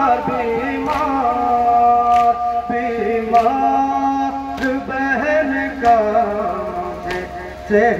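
A noha (Muharram lament) sung in Urdu in long, wavering held notes, with a sharp hand-on-chest matam strike about every 1.2 seconds keeping time.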